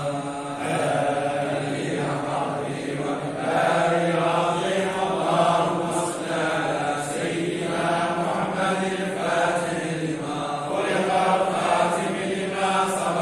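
A group of men chanting a devotional recitation together in unison, the voices steady and unbroken.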